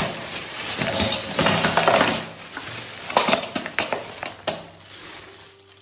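Frozen Indian gooseberries (amla) tipped from a plastic bag into a stainless steel bowl: the plastic crinkling and rustling while the hard fruit clatter against the metal and each other, dying down near the end.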